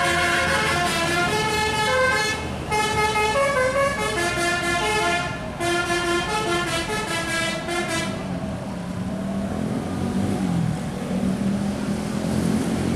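Telolet horn of a Hino AK8 intercity bus: a set of air horns playing a quick tune of changing notes, with short breaks, for about eight seconds. Then the horn stops and the bus's engine is heard running, its pitch wavering a little.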